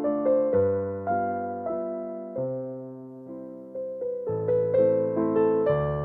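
Background music: slow, gentle piano melody with sustained chords.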